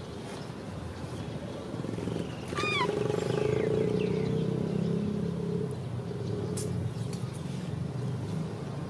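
A motor vehicle's engine, swelling to its loudest about three seconds in and then fading slowly. A quick run of four short, high, falling chirps comes just as it rises.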